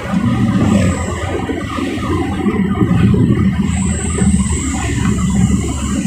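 Steady rumble of a vehicle's engine and road noise while driving fast on the highway, with a faint high whine about two thirds of the way through.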